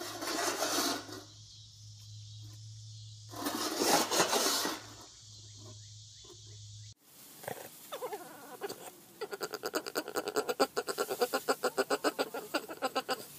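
Husky-type dog growling over its food bowl in two rough bursts about a second long. Later a fast run of pulses, about five a second.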